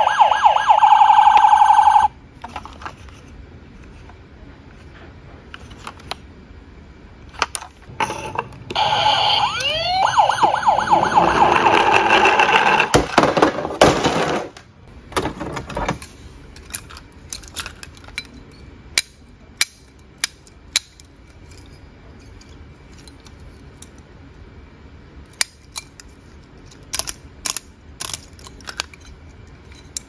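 Battery-powered toy police car's electronic siren wailing in rapid pulses, cutting off about two seconds in. A toy siren sounds again for several seconds in the middle. After that come scattered clicks and knocks of plastic toy vehicles being handled in a cardboard box.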